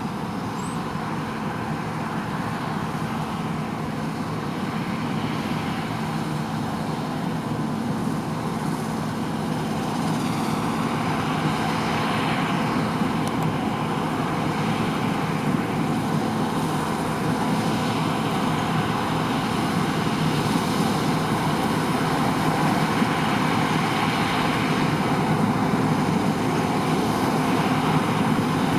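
John Deere T560 Hill Master combine harvester running steadily as it cuts winter barley, growing gradually louder.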